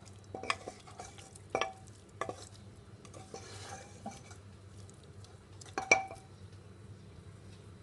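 A spoon stirring minced meat (keema) in a pot to dry off its water, clinking sharply against the pot a few times with short rings. A faint sizzle runs under the stirring.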